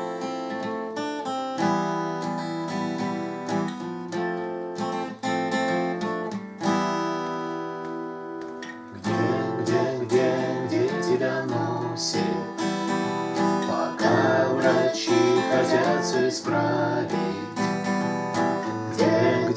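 Acoustic guitar playing a song's intro: slow chords left to ring, then about nine seconds in a louder, busier strummed pattern.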